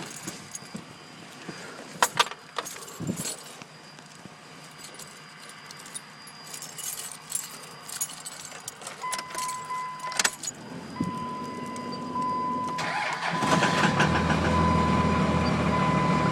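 Keys and clicks in the cab, then a steady high tone from about nine seconds in. The Dodge's 24-valve Cummins inline-six diesel cranks on a cold start with no grid heater and catches about thirteen seconds in, then runs loud and a little rough.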